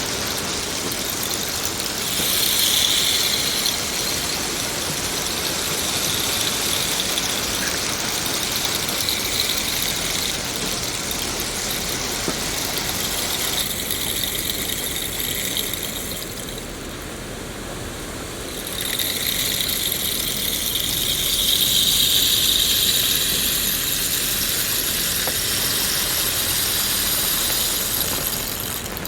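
Steady falling rain, a dense, even hiss of raindrops. About 14 s in, the sound changes abruptly to a different rain recording; it dips a little soon after, then swells again.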